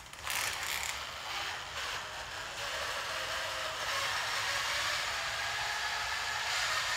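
Power drill running steadily while twisting strands of 8-gauge copper wire together, to tighten the twist for noise rejection.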